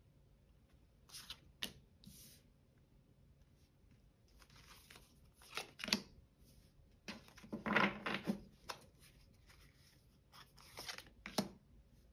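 Magic Luna oracle cards being drawn from the deck and laid down one by one on a wooden table: short papery slides and pats. The longest rustle comes about eight seconds in, and there is a sharp tap near the end.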